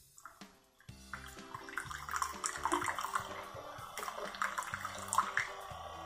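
Keurig K-Slim single-serve coffee maker dispensing hot coffee into a mug: a streaming, splashing pour that starts about a second in. Background music plays underneath.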